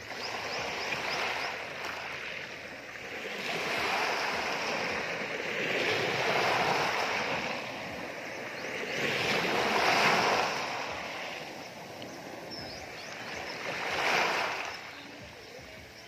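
Small sea waves washing in over a pebble beach, the surf swelling and easing several times, loudest about ten seconds in and again a little after fourteen.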